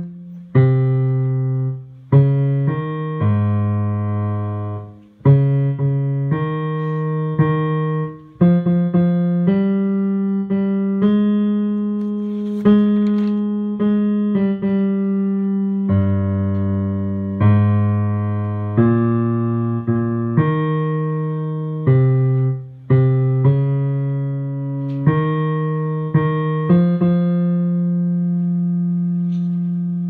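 Piano playing the tenor and bass lines of a choral part together, two low notes at a time, each struck note fading before the next. The last note is held near the end.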